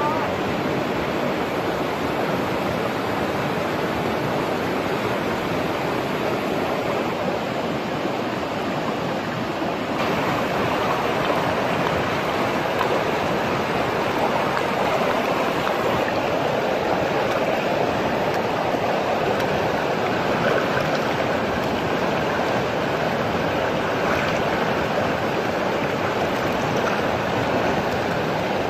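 Fast river rapids rushing loudly and steadily, an even wash of white water. The rush gets a little louder about ten seconds in.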